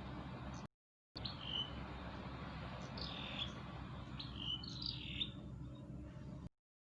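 Birds chirping outdoors: short calls that fall in pitch, repeated every second or so over a steady low background rumble. The sound cuts out abruptly for about half a second just under a second in, and stops dead near the end.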